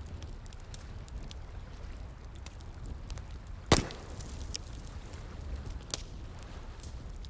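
Wood fire crackling with scattered small pops and one loud snap a little past the middle, over a steady low rush of flowing water.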